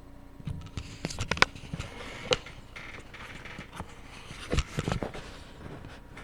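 Handling noise in a small room: a string of sharp clicks, taps and knocks with some rustling, bunched about a second in and again near the end, over a faint steady hum.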